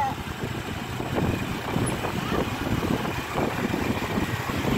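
Motorcycle riding along a road: the engine running under a rush of wind and road noise on the microphone.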